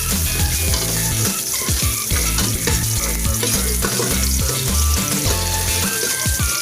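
Ginger sizzling as it fries in hot oil, a steady crackling hiss, under background music with a pulsing bass line and a stepped melody near the end.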